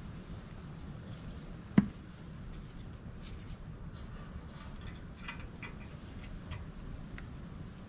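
Handling noises from work at the wheel: one sharp knock about two seconds in, then scattered light clicks and ticks over a low steady background rumble.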